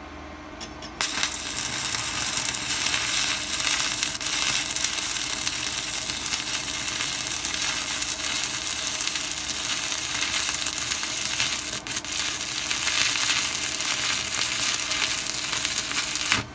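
Stick (MMA) welding arc from a Weldinger EW 140 Mini inverter set to 85 A with a 2.5 mm electrode, laying a short bead. The arc strikes about a second in, burns steadily with a brief break near twelve seconds, and goes out just before the end.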